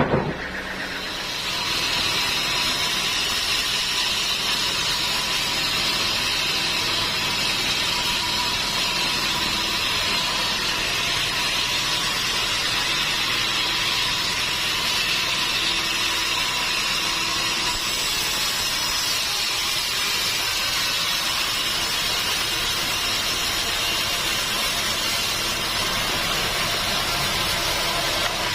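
Sawmill machinery running steadily. It builds to an even level about two seconds in, with a constant high hiss and a faint steady whine.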